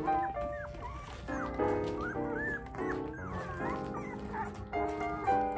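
Young Bernese mountain dog puppies whimpering in high, wavering whines, mostly through the middle, over background music with held chords.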